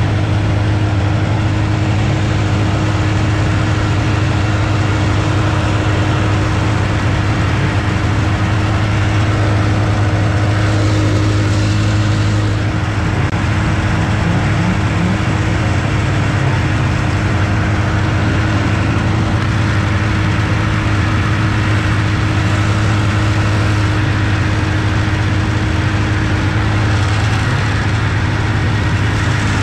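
A 1980 TX340 stock racing snowmobile's two-stroke engine idling steadily, with a constant low hum and only a slight change in tone about ten to thirteen seconds in.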